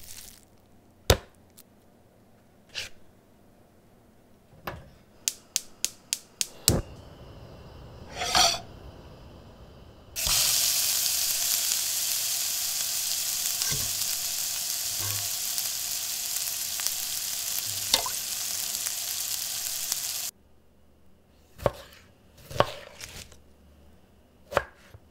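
Sharp knocks and clicks, including a quick run of clicks, then a frying pan sizzling loudly and steadily for about ten seconds. The sizzle cuts off abruptly and more sharp knocks follow near the end.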